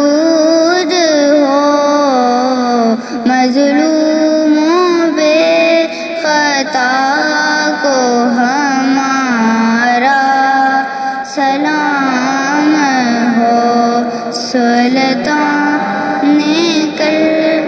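A high voice singing an Urdu salam, a devotional Islamic recitation, in long, ornamented phrases whose pitch wavers and slides, with short breaks about 3 and 11 seconds in.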